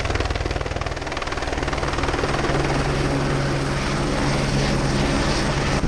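Helicopter flying in and setting down on a pad close by: the rapid beat of its main rotor over a steady low engine hum, growing a little louder as it comes in.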